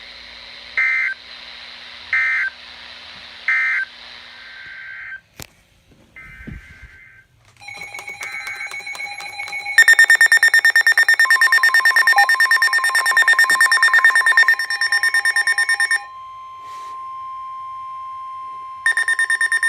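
Three short screeching digital data bursts, the Emergency Alert System end-of-message code, sound about a second apart. Then come a rapid electronic alarm beeping and a steady long tone, starting about ten seconds in: a weather radio's warning alert ahead of the next warning.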